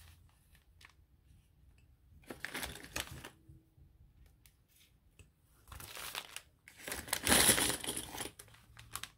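Paper pages rustling and being shuffled by hand in a few short bursts, the loudest about seven seconds in.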